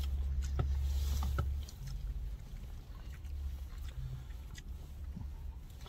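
Low, steady rumble in a car cabin, heavier for the first couple of seconds and then fading down. Soft scattered clicks and rustles come from takeout food being handled and eaten.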